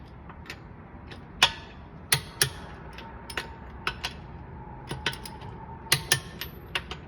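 Sharp metallic clicks at uneven intervals, about a dozen, from a click-type torque wrench and its ratchet working the wheel's lug nuts to torque in a star pattern. Each break-over click signals that a nut has reached the set torque.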